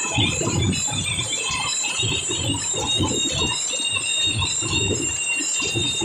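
Loud band music from a truck-mounted stage, with fast low drum beats and a steady high ringing over them.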